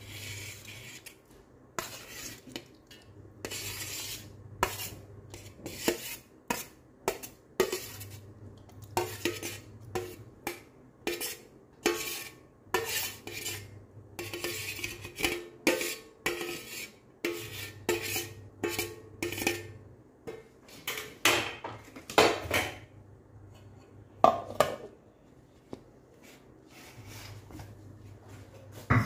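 A utensil repeatedly scraping and clinking against a metal pan and a stainless-steel grinder jar as cooked onion and tomato are scraped out of the pan, one or two sharp knocks or scrapes a second.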